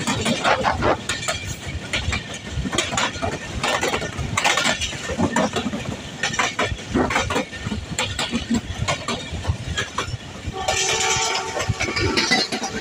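Passenger train running on the track, its wheels clattering irregularly over the rails. Near the end a steady pitched tone with several notes sounds for about a second and a half.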